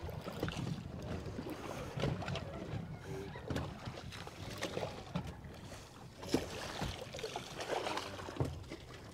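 Wind and water around a small boat on open sea, with irregular knocks and clicks on board while a fish is being reeled in.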